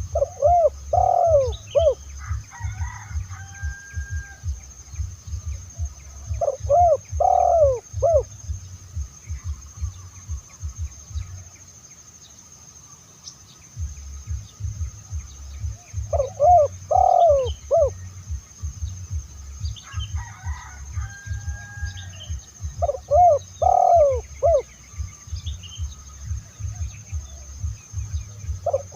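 Spotted dove (tekukur) cooing in phrases of three or four short, rounded coos, repeated every six to ten seconds, with a low rumbling noise underneath. Twice, shortly after a phrase, a fainter and rougher call sounds higher up.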